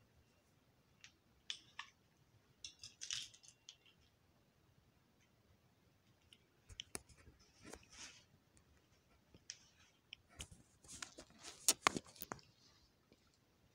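Handling noise from a phone being moved in the hand: scattered clicks and short rustling scrapes of fingers and fabric against the phone near its microphone, coming in three clusters, the busiest near the end.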